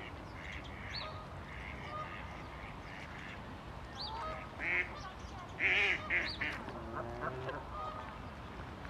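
Waterfowl calling: a cluster of short, loud calls about halfway through, over steady outdoor background noise.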